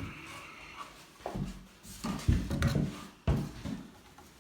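Handling noise of a wooden door being moved against sawhorses: three heavy bumps about a second apart, each with a brief low ring.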